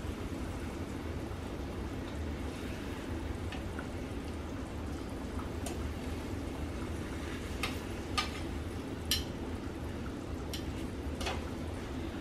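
Tortilla frying in a skillet of hot oil, sizzling steadily, with a few sharp clicks and pops scattered through the second half.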